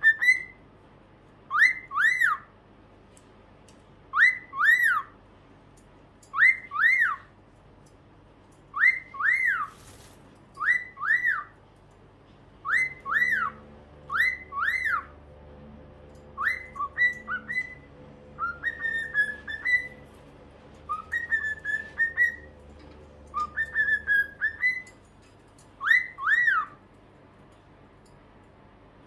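Pet cockatiels whistling: a two-note whistle, each note rising then falling, repeated about every two seconds, with a few longer warbling phrases in the middle.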